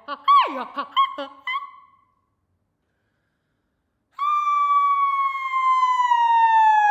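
Solo female voice in contemporary vocal music: a few quick yelping cries that swoop up and down in pitch in the first two seconds, then a pause. From about four seconds in comes one long, loud high sung note that slowly sinks in pitch.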